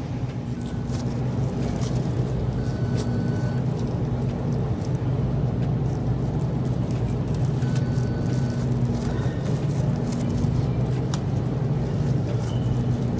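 Steady low machine hum, with a few faint tones about a second long and scattered light clicks.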